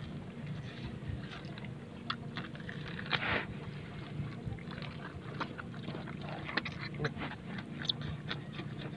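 Raw blue marlin flesh being pulled and torn apart by hand: scattered small wet clicks and smacks, the loudest about three seconds in, over a steady low hum.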